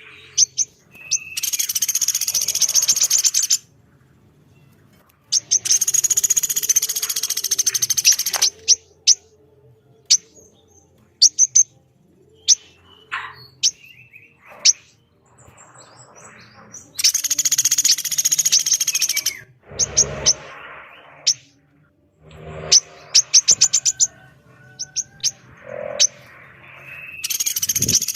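Calls of a pelatuk beras woodpecker and a female korlap: long, fast, very high rattling trills of two to three seconds, four times, with sharp single chip notes in between.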